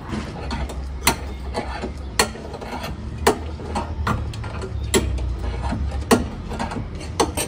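Hand-cranked car jack being wound under a car's sill: sharp metal clicks roughly once a second, with lighter clicks and scraping between.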